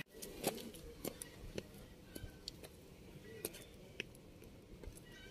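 Faint, scattered clicks and ticks over a quiet background, with a few faint short high chirps.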